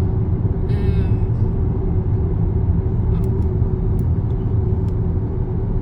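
Steady road and engine rumble inside a moving car's cabin, with a steady low hum and a few faint clicks.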